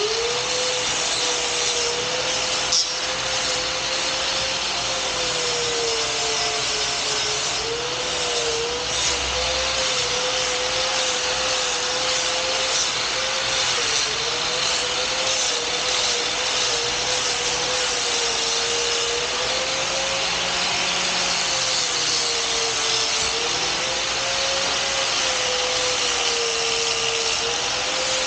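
Angle grinder running steadily while grinding a piece down to size, its motor whine dipping and recovering as the disc is pressed into the work, under a steady rasping hiss.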